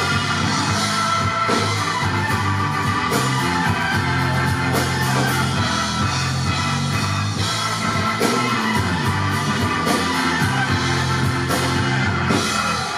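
Anatolian rock band playing live: electric guitar, bass and drum kit with regular cymbal strokes.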